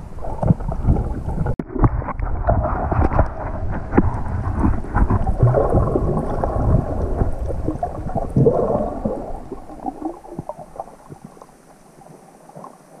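Muffled underwater rumble and sloshing, heard through a camera's waterproof housing, with many small clicks and knocks from movement in the water. It dies down to a faint hiss about ten seconds in.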